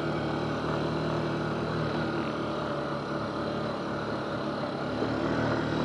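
Yamaha Grizzly 350 quad's single-cylinder four-stroke engine running steadily.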